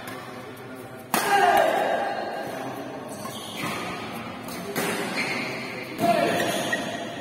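Badminton rally: sharp racket hits on the shuttlecock, echoing in a large hall. The loudest hits come about a second in and at about six seconds.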